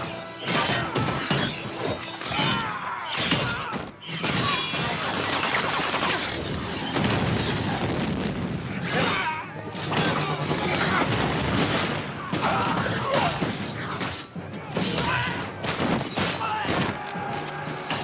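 Film battle soundtrack: a music score over a dense, rapid run of blade strikes, metal clashes and heavy thuds.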